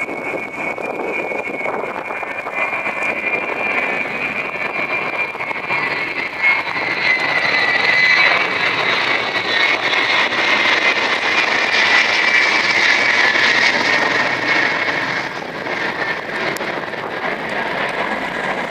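Four-engine jet transport aircraft flying low overhead: a steady jet roar with a high engine whine that slowly falls in pitch, growing louder towards the middle and easing off near the end.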